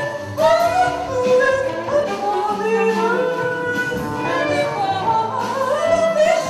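Live small ensemble playing: a sliding, wavering melody line over drum kit and cymbal strikes and low sustained notes.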